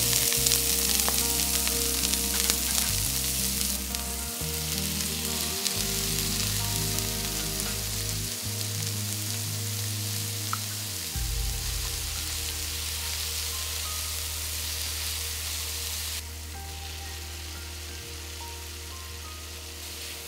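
Sliced onion, then sausage and garlic, sizzling in hot oil in a frying pan as they are stirred. The sizzle is loudest at the start and drops back in steps about four and sixteen seconds in.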